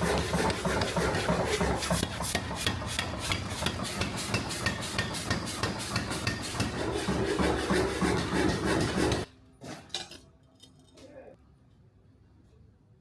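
Steel being worked by hand with rapid, irregular rasping and scraping strokes, which stop suddenly about nine seconds in. A few knocks follow.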